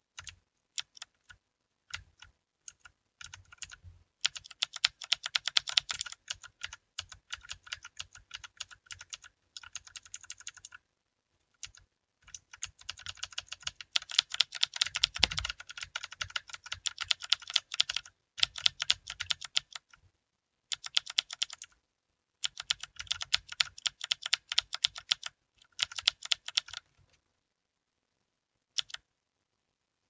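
Typing on a Redragon mechanical keyboard: fast runs of key presses in several bursts broken by short pauses, with a few single keystrokes near the start and one near the end.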